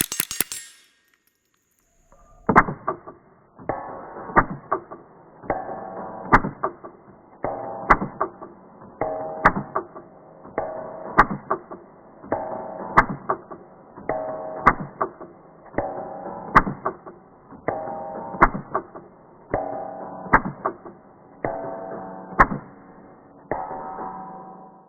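Music with a steady repeating beat and held notes, starting about two and a half seconds in after a short silence. At the very start, the last of a rapid string of suppressed .22 rifle shots ends.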